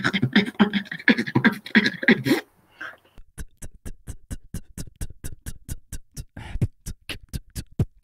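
Beatboxing: a dense beat with a pitched vocal line cuts off suddenly about two and a half seconds in. After a short silence, a fast, even run of sharp mouth clicks and kicks starts, about five a second.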